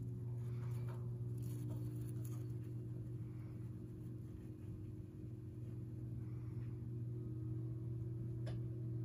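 Light scratching and rustling of a Dzungarian hamster clambering over its wire cage platform and into paper bedding, clearest a second or two in, over a steady low hum. A single sharp click near the end.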